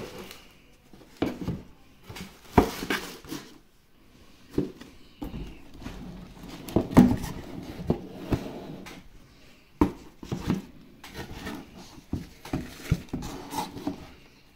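A pair of shoes being lifted out of a cardboard shoe box lined with tissue paper: irregular rustling and handling noise with scattered knocks and bumps, the loudest about seven seconds in.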